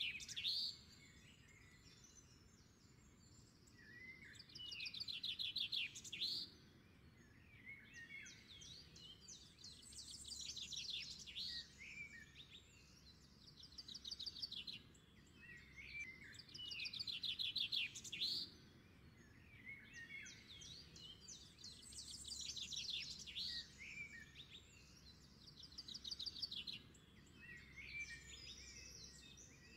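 Faint birdsong: phrases of quick chirps and trills that recur every few seconds over a low steady background noise.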